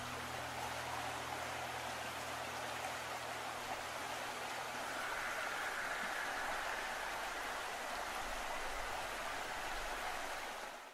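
A steady, even rushing of water, with the last held tones of a string piece dying away in the first second.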